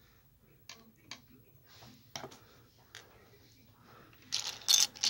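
Plastic Lego bricks clicking and tapping against one another and the wooden tabletop as they are handled: a few separate clicks, then a louder clatter of bricks near the end.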